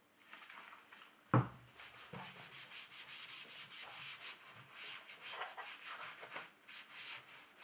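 A cloth rag rubbed back and forth over a leather steering-wheel rim, wiping on leather stripper in quick scratchy strokes, about three a second. A single sharp knock comes about a second in.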